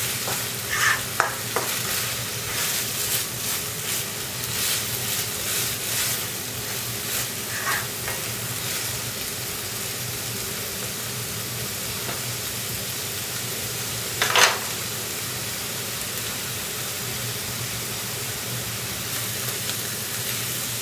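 Onion, tomato and coconut masala paste sizzling in oil in a nonstick pan, at the stage of frying until the oil separates. A spoon stirs and scrapes through it, with frequent strokes in the first several seconds and one louder stroke about two-thirds of the way through.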